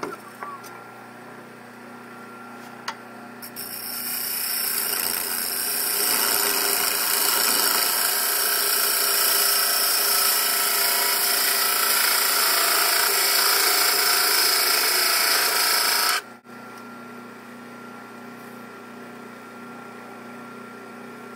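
Wood lathe running with a steady motor hum while a turning tool cuts into the spinning maple pepper-mill blank. The cut makes a loud, even scraping noise that starts about three seconds in and cuts off abruptly about sixteen seconds in, leaving the lathe's hum.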